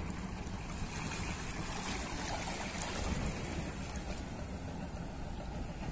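Small waves lapping and splashing against rocks at the water's edge, a steady wash with a low wind rumble underneath.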